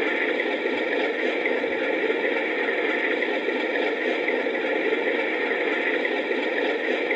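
Alco diesel engine sound from a Zimo MX696V sound decoder, played through the small speaker of an LGB G-scale White Pass & Yukon model locomotive: a steady engine drone.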